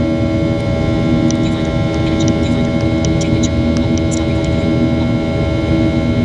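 Boeing 737-800 cabin noise in flight: the CFM56-7B jet engines and airflow make a steady drone with several fixed engine tones held over low rumble. A scatter of faint light ticks comes about one to four and a half seconds in.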